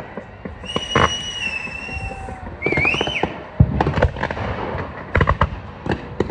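Aerial fireworks going off: a string of sharp bangs and crackling bursts, the loudest about a second in and again past three and a half seconds. High whistles sound in among them, one held and slightly falling early on, and a shorter rising one around three seconds in.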